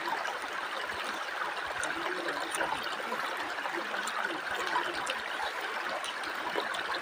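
Shallow rocky river flowing: a steady babble of water running over stones.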